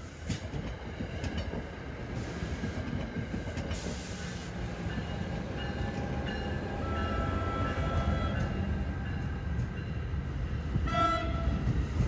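Commuter train rumbling along the tracks, a steady low rumble, with a short train horn blast near the end.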